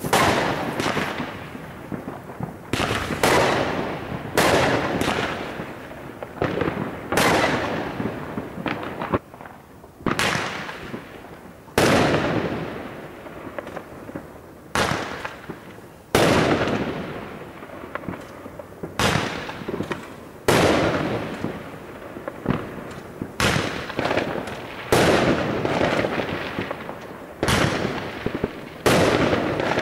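Aerial fireworks shells bursting in a steady string, about twenty sharp bangs one every second or two, each fading away over a second or so.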